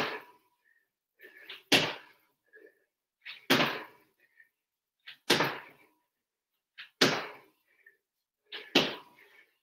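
Squat jumps: feet landing on a wooden floor with a thud about every 1.7 seconds, six landings in a steady rhythm.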